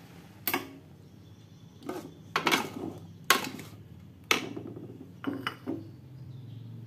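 Metal spatula and ladle knocking and scraping against an aluminium wok while rice cakes in thick sauce are stirred: a string of about nine sharp clanks and scrapes at irregular intervals.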